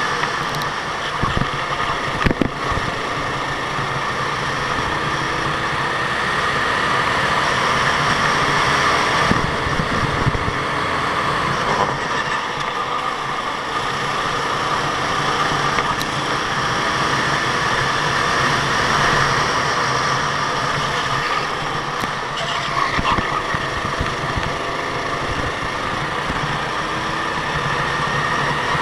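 Go-kart engine running at high revs, its whine wavering slowly up and down in pitch, with a few sharp knocks near the start and again later on.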